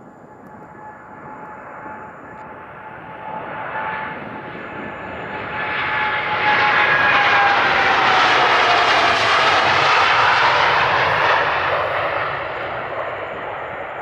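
Boeing 787-9's twin GEnx-1B turbofans at take-off power passing by, growing steadily louder to a peak about halfway through and then easing off. A whining tone in the engine noise drops in pitch as the jet goes past.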